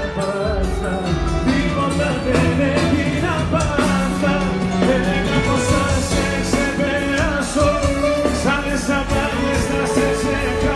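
Live band playing a Greek pop song, with a male voice singing over it, heard amplified through a venue's sound system from within the audience.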